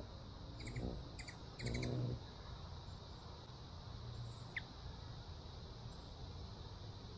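Hummingbird at a feeder: short bursts of wing hum about a second in and again near two seconds, with quick high chip notes, then one short rising high chirp a little after four seconds.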